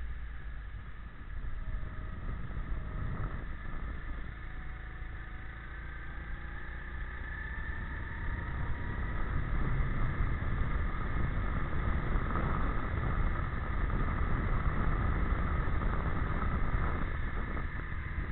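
Go-kart engine running, heard onboard, its pitch climbing slowly as the kart accelerates and growing louder about halfway through.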